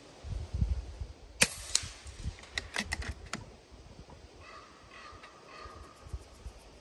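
A single shot from an FX Impact M3 PCP air rifle fired through its harmonic tuning shroud: one sharp, short report about a second and a half in. A quick run of smaller clicks follows over the next two seconds.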